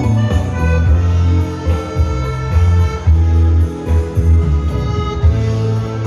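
Piano accordion playing dance music live over a backing of bass and other instruments, the bass notes moving in a steady rhythm.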